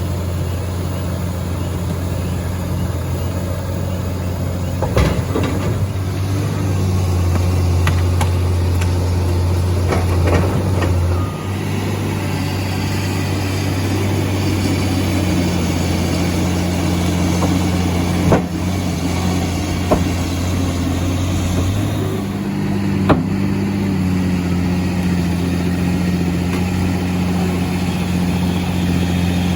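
Heavy diesel engine of logging and earthmoving equipment running steadily, its speed shifting a few times, with several sharp knocks scattered through.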